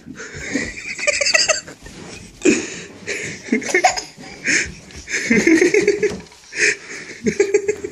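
Repeated short bursts of laughter, a toddler's giggling among them.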